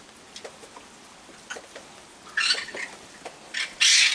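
Raccoon hissing in three angry bursts about halfway through and near the end, the last the loudest, over scattered small clicks of raccoons eating.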